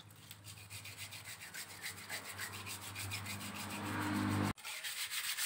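Rapid hand scraping or sanding strokes, about five a second and growing louder, as the dirty turn-signal bulb socket is cleaned to restore its contact. A low hum builds beneath the strokes until a sudden cut about four and a half seconds in, after which the strokes continue slightly faster.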